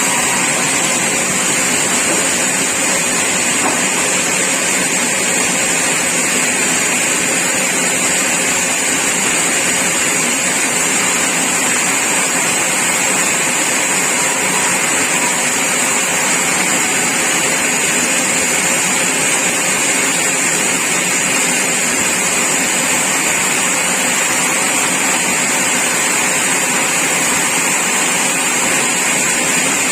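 Sawmill machinery running steadily, a loud even mechanical noise with a high hiss, with no pauses or changes.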